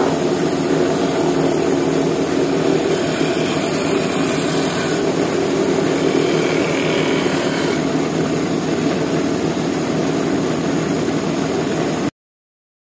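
Shop-built disc sander running, its sanding disc grinding the edges of a wooden boat hull pressed against it. A steady machine hum carries a sanding hiss that grows stronger for a few seconds in the middle. The sound cuts off near the end.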